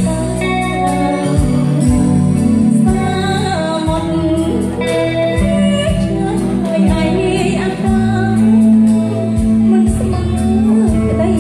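A woman singing live into a microphone, backed by a small band with guitar and keyboard over a steady beat.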